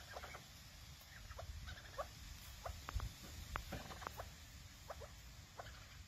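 Chukar partridges feeding, giving faint, short chirping and clucking calls at irregular intervals, some sliding in pitch, with a few small sharp clicks among them.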